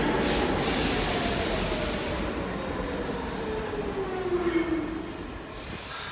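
R46 subway train slowing, its traction motor whine falling steadily in pitch over about five seconds above the wheel rumble, with the whole sound fading as the train loses speed. A few louder knocks come near the whine's end.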